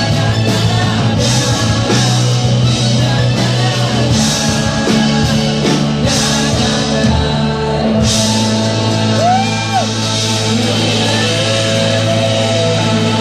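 Rock band playing live: acoustic guitar, electric guitar, bass and drums, with a singer at the microphone.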